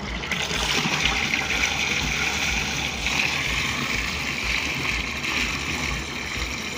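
Fresh cow's milk poured in a thick, steady stream from a bucket into a steel barrel of water, splashing into the liquid.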